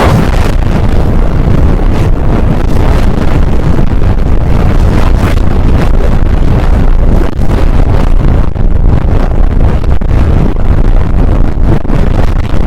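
Very loud, heavily distorted rumbling noise, strongest in the bass and without any clear tone, that cuts off abruptly near the end.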